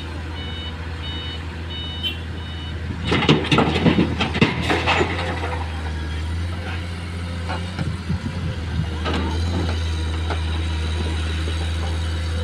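Komatsu PC210 excavator's diesel engine running steadily, with a warning beeper sounding about twice a second until about two seconds in. Then a loud clatter of rock dumped from the bucket into the steel dump truck bed, followed by lighter knocking and scraping as the bucket works the rock face.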